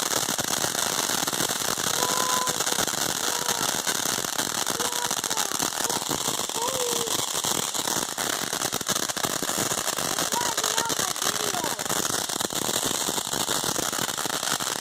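Ground fireworks fountain crackling densely and without a break.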